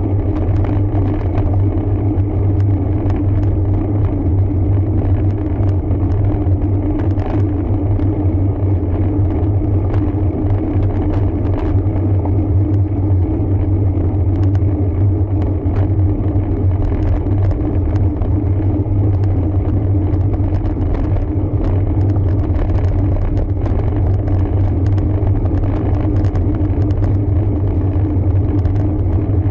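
Steady low rumble of riding a road bike, with many faint scattered ticks on top.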